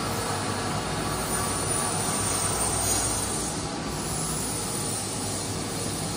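Steady hum and hiss of running machinery, with no strokes or rhythm and an even level throughout.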